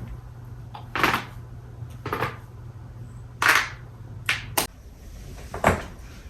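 Joints being cracked: about half a dozen sharp cracks and pops, spaced irregularly a second or so apart. A low steady hum underneath stops about two-thirds of the way through.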